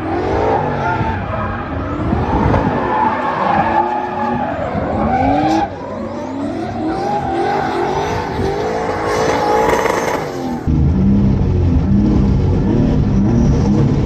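Two drift cars in tandem, their engines revving up and down at high revs with tyres squealing, heard from trackside. About ten and a half seconds in, it changes suddenly to the steady low-rev running of the Toyota Chaser's engine, heard from inside the car.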